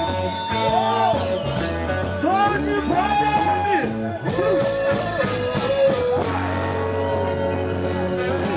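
Live reggae band playing with bass, keyboards and guitar, with a sung or lead melody line over it.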